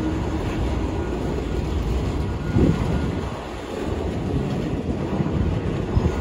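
Freight train of autorack cars rolling past at a grade crossing: a steady low rumble of wheels on rail, with a louder clunk about two and a half seconds in.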